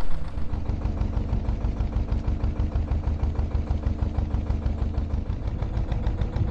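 A narrowboat's diesel engine running steadily while cruising, with an even, rapid beat.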